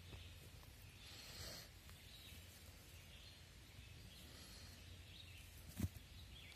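Near silence: faint outdoor ambience as hands work loose dirt, with a brief soft rustle about a second and a half in and a single short low thump near the end.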